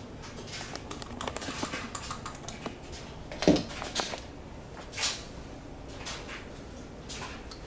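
Light clicks and knocks of objects being handled. About three and a half seconds in there is a short vocal sound that drops in pitch, and a brief breathy burst comes about a second later.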